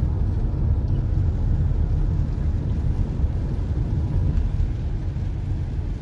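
Steady low rumble of a car driving on a rain-soaked road, heard inside the cabin: tyre and engine noise.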